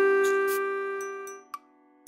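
Background music: a held chord fades away over about a second and a half, followed by a short gap of near silence before the next phrase.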